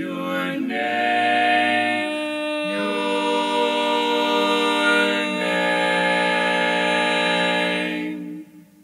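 Male barbershop quartet singing a cappella, holding long close-harmony chords that shift three times before being released near the end.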